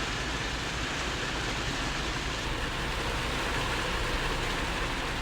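Heavy rain pouring down on a car, heard from inside the cabin as a steady even rush, with a low steady hum underneath.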